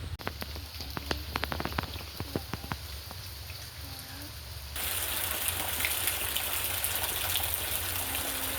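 Rain: scattered drops falling in separate ticks, then about five seconds in a sudden change to a steady, dense hiss of heavier rain.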